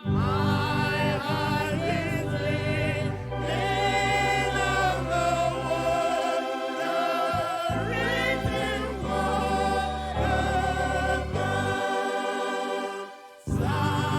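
Choir singing a gospel or church song with instrumental accompaniment. The music dips briefly about a second before the end and then comes back.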